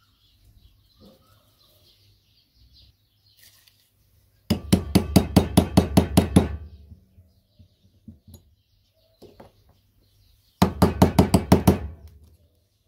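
Two quick runs of sharp metal taps, about five a second, as a screwdriver is driven against the rim of a Mercedes auxiliary heater water pump's metal housing to crimp it closed all around.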